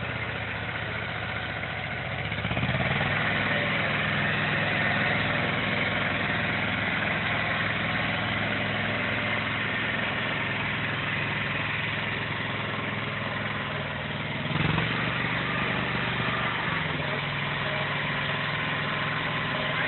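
Compact tractor's engine running steadily. It picks up in level about two and a half seconds in. There is one brief louder bump about fourteen and a half seconds in.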